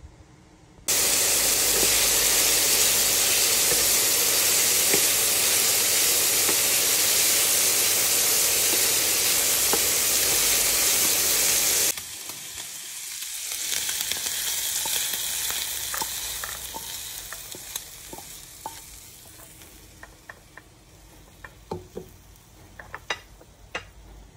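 Food frying in a hot pan, a loud steady sizzle that cuts off abruptly about twelve seconds in. A quieter sizzle follows and fades away, then a few sharp clicks come near the end.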